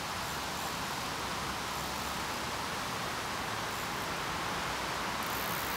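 Steady outdoor background hiss, even and unbroken, with no distinct sounds standing out.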